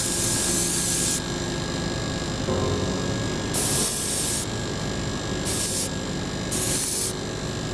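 Airbrush spraying paint in short hissing bursts: one ends about a second in, and three more come in the second half. A steady hum runs underneath. The paint is sprayed through a thin slice of abrasive sponge held on the model to lay a mottled pattern.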